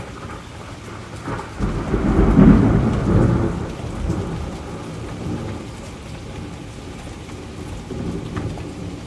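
Thunder rumbling over steady rain: a roll builds about a second and a half in, is loudest a second later, and fades away over the next few seconds while the rain goes on.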